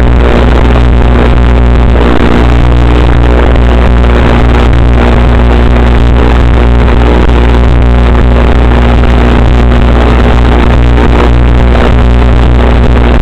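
Loud, steady electrical buzz with an unchanging hum, typical of interference on an analog FPV video link's audio. The quadcopter is disarmed, so its motors are not running.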